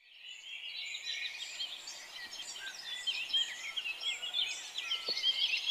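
Many small birds chirping and twittering at once, a dense chorus of short, quick calls that fades in at the start.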